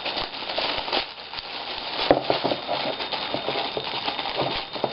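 Packaging wrapping being ripped and crinkled off a boxed subwoofer by hand: an irregular crackle of tearing and rustling, with a few louder snaps about two seconds in and near the end.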